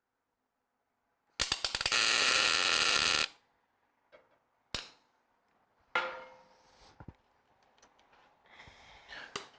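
Welder laying a tack weld on a steel bumper, a harsh electric-arc crackle lasting about two seconds. It is followed by a few sharp metallic clicks and a ringing clank of steel parts.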